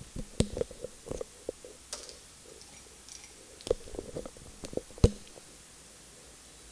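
Pens handled on a paper worksheet: a run of irregular clicks and light taps, the sharpest click about five seconds in, as a highlighter is set down and a marker picked up.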